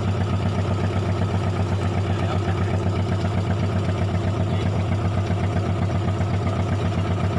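A small fishing boat's inboard engine running steadily at low revs, with an even, rhythmic throb.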